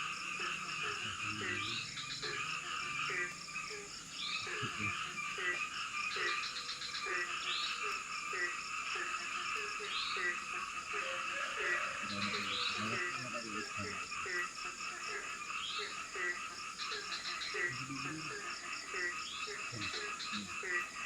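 Chorus of frogs calling: many short croaks repeated at a steady pace, overlapping with quick upward-sweeping chirps, over a steady background hum of calls.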